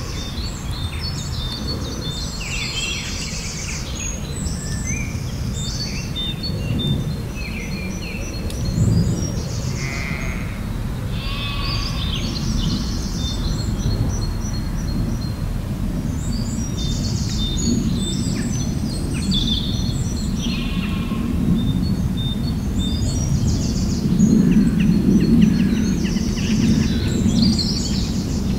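Several songbirds singing, with short high phrases repeating and overlapping throughout, over a steady low outdoor rumble that swells near the end.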